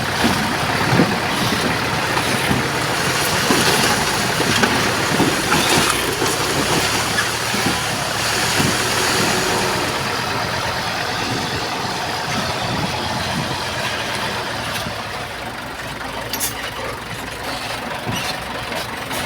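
Heavy diesel earthmoving machinery running, a steady engine drone under scattered clanks and rattles, easing off slightly over the second half.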